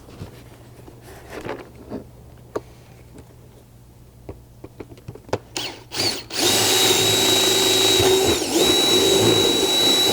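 A few small clicks and knocks, then about six seconds in a power drill starts and runs steadily with a high whine, dipping briefly once, as a 1/4-inch bit drills through the plastic door panel.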